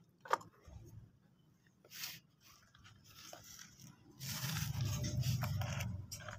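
Plastic toy vehicles being handled: a few light clicks and knocks, then about two seconds of scraping with a low rumble, the loudest part, starting a little past halfway.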